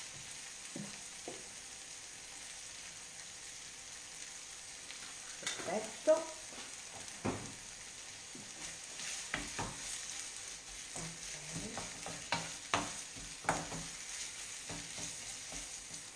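Potato and 'nduja filling sizzling steadily in a frying pan on a gas hob. In the second half a wooden spoon knocks and scrapes in the pan as the filling is stirred.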